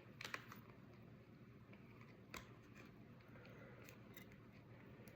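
Faint clicks and crinkles of a pocket watch's cardboard packaging being handled, a small cluster near the start and one sharper click about two and a half seconds in, over a low steady background hum.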